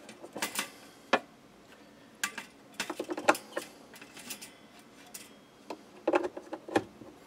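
Irregular light clicks and small clattering knocks of small metal and plastic parts being handled on a workbench, coming in short clusters every second or two.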